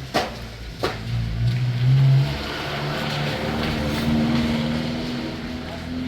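Car engine running under way, its pitch rising as the car accelerates, with two sharp clicks in the first second.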